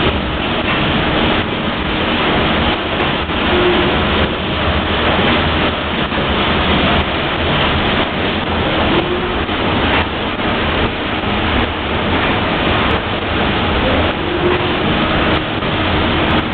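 Engine room of a steam tug with its triple-expansion steam engines running: a loud, steady machinery noise, with a brief faint tone recurring about every five seconds.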